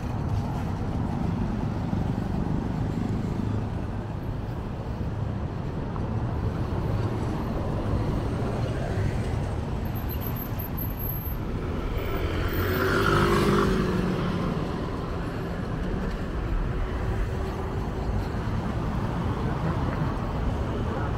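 City street traffic: a steady hum of cars, with one vehicle passing close and louder about two-thirds of the way through.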